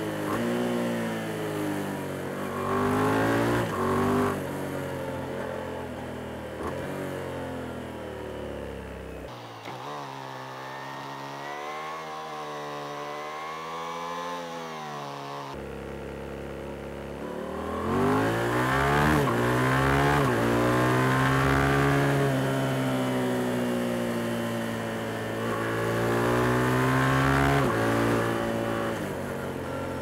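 Yamaha MT-07's parallel-twin engine heard from the rider's seat, its revs climbing and falling again and again with throttle and gear changes. It drops quieter for several seconds in the middle, then pulls louder from about eighteen seconds in.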